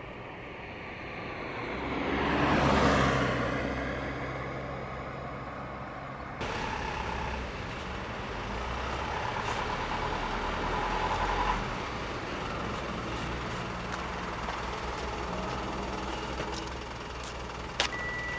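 A motor vehicle passes, swelling to a peak about three seconds in and fading; then a large vehicle's engine runs steadily, with a click and a short beep near the end.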